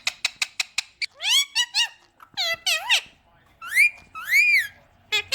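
Parrot vocalising: a rapid run of about eight clicks, then a string of whistled calls that sweep up and down in pitch, including two long arching whistles and a few quick chirps near the end.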